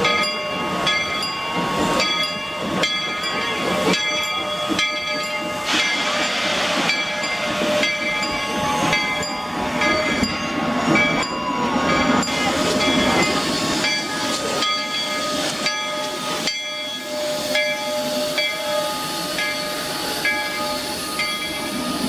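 1881 Baldwin steam locomotive No. 340 and its train rolling past, with steam hissing and a stronger burst of steam about six seconds in. Repeated metallic clanks and ringing tones come from the running gear and cars.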